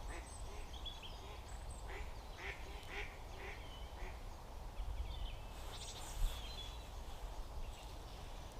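Ducks quacking in a run of repeated calls, about two a second, that stop about four seconds in. Small birds chirp briefly after.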